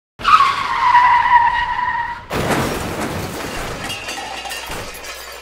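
Skidding car tyres screeching for about two seconds, then a crash with shattering that slowly dies away.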